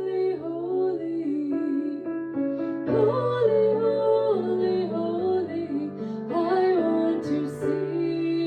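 A woman singing a hymn with piano accompaniment.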